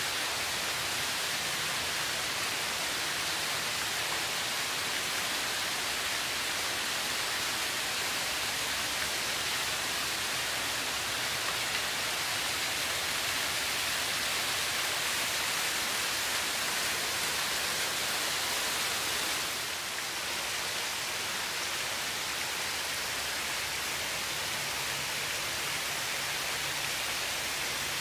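Water-wall fountain: sheets and streams of water falling from a ledge into a shallow basin, a steady splashing rush of falling water, slightly quieter from about two-thirds of the way through.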